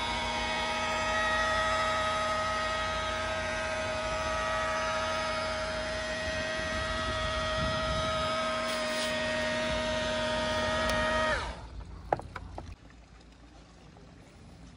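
Electric rotary polisher running at a steady pitch with a whine as its pad cuts compound into a boat's gelcoat to remove oxidation. Past the middle it is switched off and the whine falls away as it spins down, followed shortly by a single sharp click.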